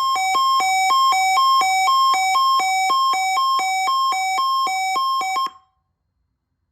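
Weather radio receiver's alert alarm: two tones alternating quickly, about two and a half cycles a second, growing louder and then cutting off suddenly about five and a half seconds in. It is the receiver being activated by a weather radio test signal.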